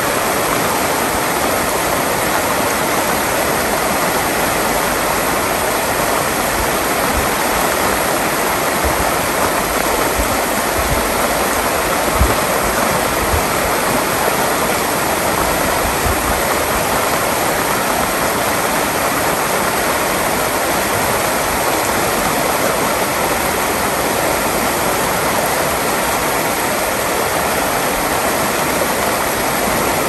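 A river's water rushing steadily, an even, unbroken hiss of flowing water.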